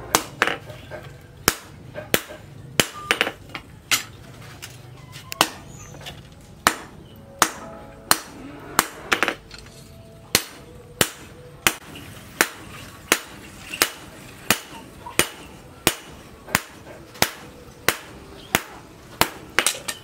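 Hand hammer striking a red-hot steel blade, cut from a tractor plough disc, on a steel post anvil while hot-forging it. Sharp metallic blows come irregularly at first, then settle into a steady pace of about three blows every two seconds.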